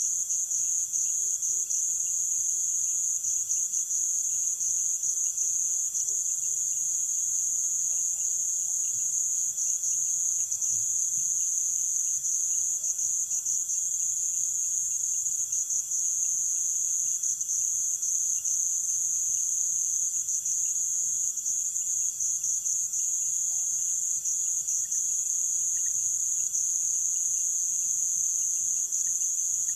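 Steady night chorus of rainforest insects: a loud, unbroken high-pitched trill that does not let up, layered over fainter, higher and lower insect calls.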